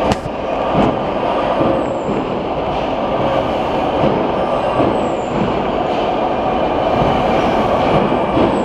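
Cookware edge-trimming and curling machine running: a steady, dense mechanical noise with a couple of sharp clicks in the first second.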